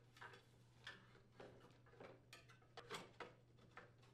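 Faint, irregular clicks and light knocks of a plastic muffler cover being handled and seated over a snowblower engine, about nine taps spread unevenly.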